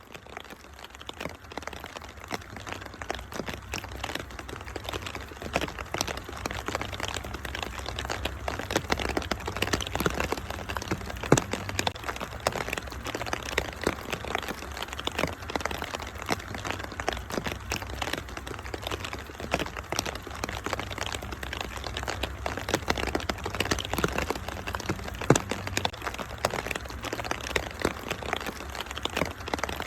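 Wood fire crackling, with dense small cracks and a couple of louder pops, over a steady hiss of rain and a steady low rumble. The sound fades in over the first few seconds.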